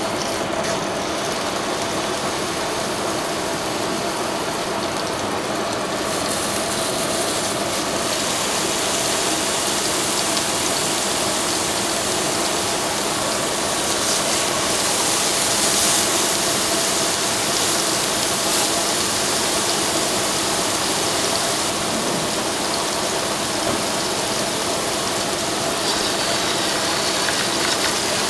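Beef burger patties sizzling in hot oil in a nonstick frying pan, a steady loud hiss that gets fuller as the second and third patties are laid in, with light spatula scrapes against the pan.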